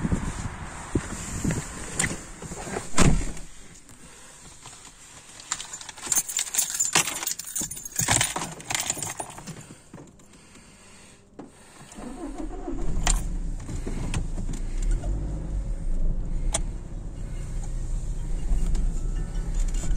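Inside a car in an automatic car-wash bay: scattered clicks and knocks, with a sharp knock about three seconds in, then a few seconds of bursts of hissing. From about twelve seconds in, a steady low engine rumble as the car drives out of the bay.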